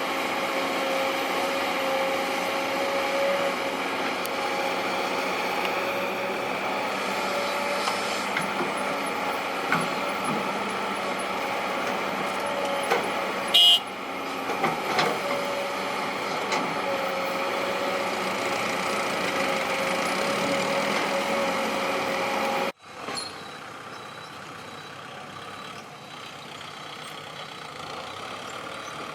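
Heavy diesel machinery, an excavator and dump trucks, running steadily, with a sharp loud metallic clank about 14 seconds in. The sound cuts abruptly about 23 seconds in and continues much quieter.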